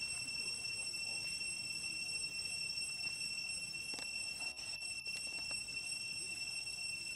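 A steady high-pitched whine held on one pitch with overtones above it, with a few faint clicks about four to five seconds in.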